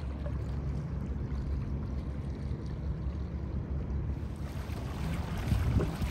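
Kayak moving on a river: water swishing at the hull over a steady low rumble, with paddle strokes splashing in the water from about four and a half seconds in.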